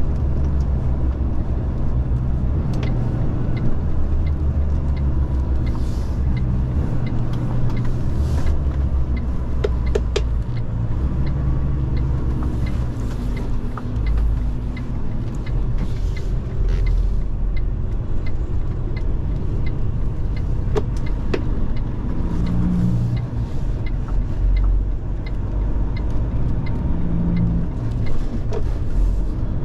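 Iveco HGV heard from inside its cab while driving: a steady low drone of diesel engine and road noise, its pitch shifting now and then.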